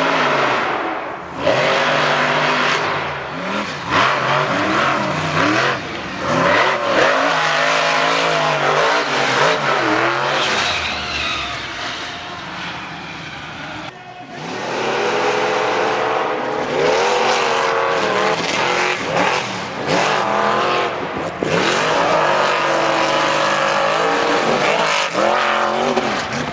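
Monster truck engines revving hard, their pitch climbing and dropping again and again as the trucks power over a sand hill. The sound breaks off sharply about halfway through and picks up again with another truck at high revs.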